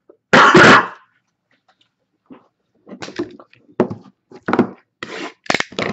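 A single loud, short burst about half a second in, then a run of short rustles and knocks as a sealed box of trading cards is handled and slit out of its plastic shrink wrap with a box cutter.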